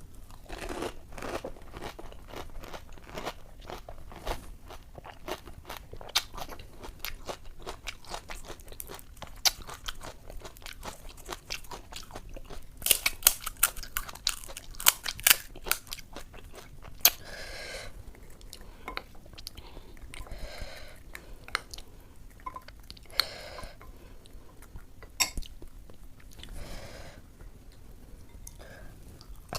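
Close-up eating sounds of puchka (panipuri) filled with ghugni: crisp fried puri shells crackling as they are bitten and chewed. A run of loud, dense crunching comes about halfway through, followed by softer wet chewing.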